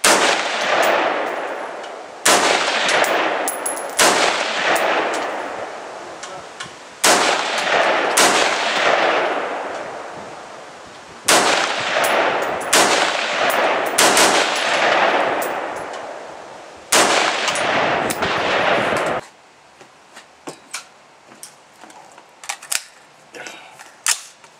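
A Stag Arms AR-15 rifle firing about ten single shots one to three seconds apart, each with a long echo trailing off. The firing stops about 19 seconds in, leaving only faint small clicks.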